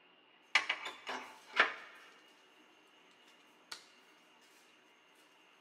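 A quick run of clattering knocks lasting about a second, sounding like something hard and metallic, followed a couple of seconds later by one sharp click.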